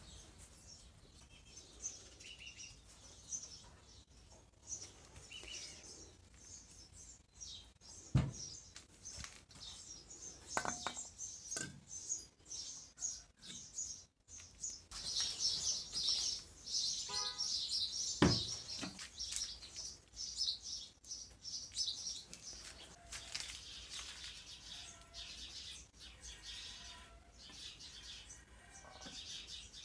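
Small birds chirping continuously, busiest about halfway through, with a couple of sharp knocks about 8 and 18 seconds in.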